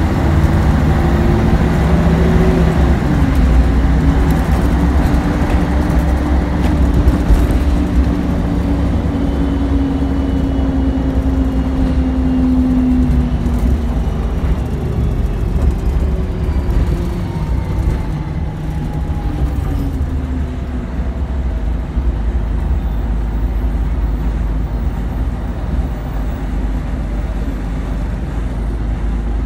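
City bus heard from inside at the front, driving with a steady low rumble and a whine that rises in pitch over the first half, dipping once about three seconds in. The whine then falls as the bus slows, and from about twenty seconds in it sits at a quieter steady idle.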